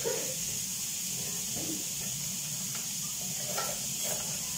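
Chicken skewers sizzling on a hot flat griddle: a steady hiss of searing meat.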